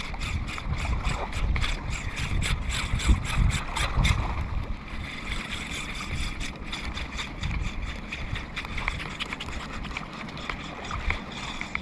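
Fishing reel clicking rapidly and evenly as its handle is cranked to retrieve the line for the first four seconds or so, then only scattered clicks, over wind noise on the microphone.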